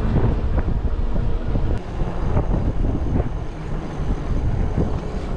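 Ride noise from the Engwe Engine X folding e-bike: wind buffeting the handlebar-mounted camera's microphone and the tyres rumbling over a rough lane, with frequent small knocks and rattles from the bike.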